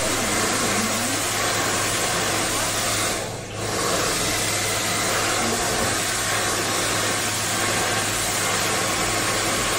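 Hand-held hair dryer blowing steadily with a low hum, dipping briefly about three seconds in.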